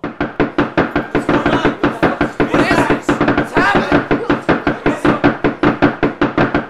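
Rapid, loud pounding on a wooden cabin door, about six blows a second, starting suddenly out of silence and keeping up without a break.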